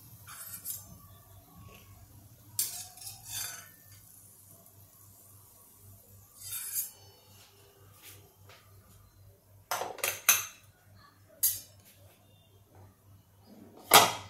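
Stainless-steel kitchenware clinking: a steel slotted frying spoon knocking against a steel kadhai and a steel plate as crisp fried shankarpali pieces are tipped out onto the plate. Scattered single clinks and short rattles a second or two apart, the loudest near the end.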